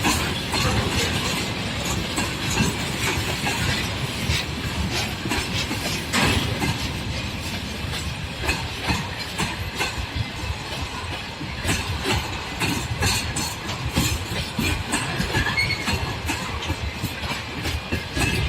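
Freight train rolling past at steady speed, its wheels knocking rhythmically over the rail joints, with the continuous rumble of the wagons.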